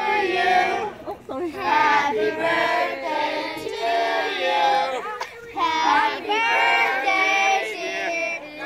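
A group of children and women singing a song together, in held phrases with short breaks between them.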